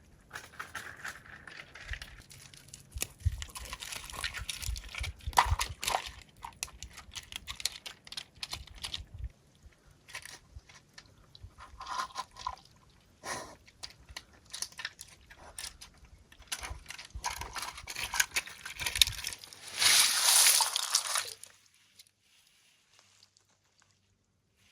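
Water sloshing and splashing with irregular knocks and rattles, low thuds in the first half, and a louder rush of splashing about twenty seconds in before it goes quiet.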